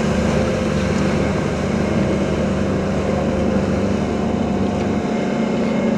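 Motorboat engine running steadily at speed, a constant drone with a rushing hiss over it. The deepest part of the drone falls away about five seconds in.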